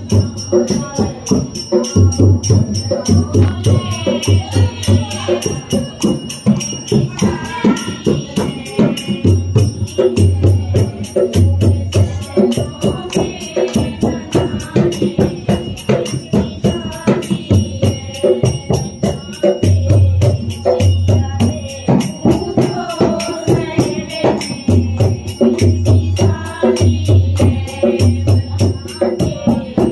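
Music: voices singing together over a fast, steady percussion beat with a recurring deep bass.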